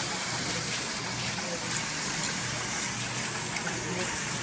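Steady, even noise of running factory machinery.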